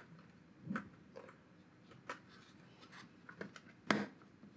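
A handful of small sharp clicks and taps as board-mounted RCA jacks are pressed into a circuit board and snap into place. The loudest click comes near the end.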